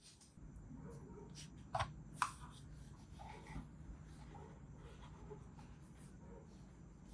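A4TECH FM10S silent mouse buttons clicking: two tiny, damped clicks about two seconds in, a fraction of a second apart, with a few fainter clicks and handling noise after them.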